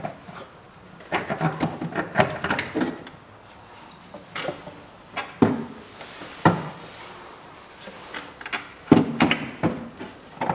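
Knocks, clunks and scrapes from the upper intake manifold of a Toyota 1MZ-FE V6 as it is rocked loose and lifted off the engine. The sound comes in several clusters of clatter, with sharp knocks a little past halfway and about nine seconds in.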